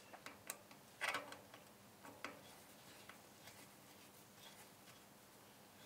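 Faint, scattered metallic clicks and light taps from hands working on a Myford lathe headstock's spindle bearing caps as they are tightened down, the clearest about a second in.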